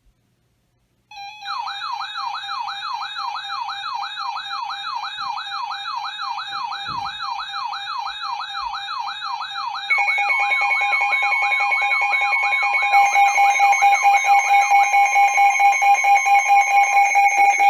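Electronic emergency alert tones: a siren-like tone wailing rapidly up and down over a steady tone, giving way about ten seconds in to steady alarm tones that begin pulsing quickly a few seconds later.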